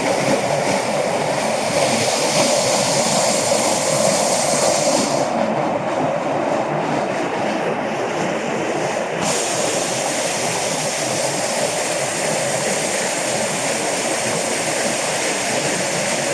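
Mountain stream rushing over rocks in a steady, loud wash of water noise.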